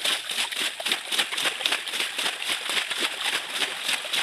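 Hands scooping and flinging muddy water out of a shallow stream pool, a quick, irregular run of splashes and slaps, several a second, as the pool is bailed out to get at crabs.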